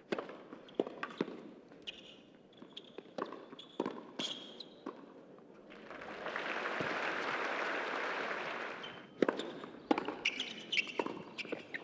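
Tennis ball struck back and forth by racquets in a rally on a hard court: sharp pops every half second to a second or so. About six seconds in, a few seconds of crowd applause, then a fresh string of racquet strikes.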